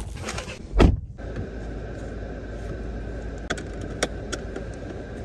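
A car door shuts with a loud thud just before a second in. Then comes the steady low hum of the car's cabin, with a few small clicks near the end.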